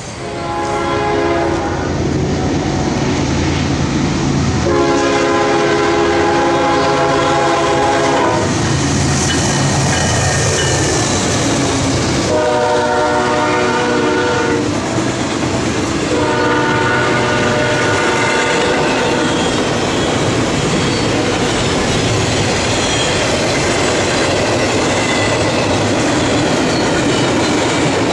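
Locomotive multi-chime air horn sounding four blasts, the last two close together, as a double-stack intermodal freight train passes. Under the horn and after it comes the steady rumble and clatter of the cars' wheels on the rails.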